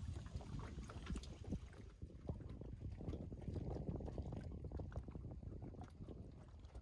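Lake water lapping in small irregular slaps and splashes against a swimming jetty, over a steady low rumble.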